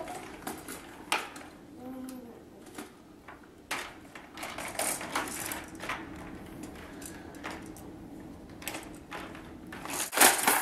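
Irregular clicks and rattles of the plastic toys on a baby jumper's activity tray as a baby handles them. A short baby vocalization comes about two seconds in.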